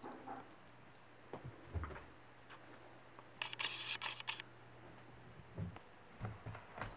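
Soft scattered taps and clicks from a cat playing with a crumpled paper ball, with a brief crackly rustle about three and a half seconds in.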